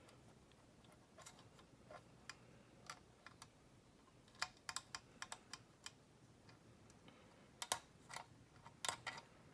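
Faint, irregular small metal clicks and taps of a pick wire and tensioner working the levers inside a lever padlock, coming in scattered clusters about four seconds in and again near the end.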